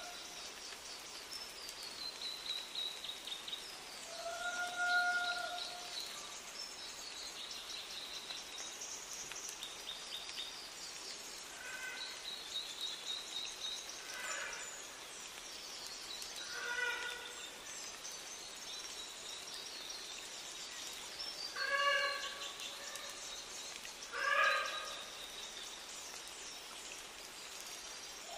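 Several New Zealand forest birds, among them South Island robins, grey warbler and bellbird, sing over one another in high thin trills and warbles. Lower, fuller calls stand out about five seconds in and twice near the end.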